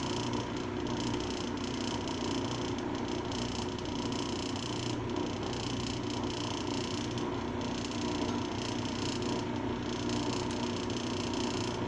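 Lapidary trim saw running, a steady, even hum with no cutting strokes or impacts.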